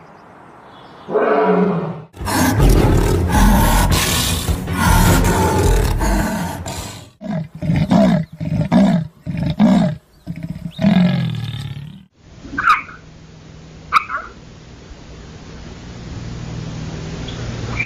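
Leopard and dog fighting: loud snarling and growling, then a run of short pitched cries about every half second. About twelve seconds in it gives way to a steady hiss with two brief chirps.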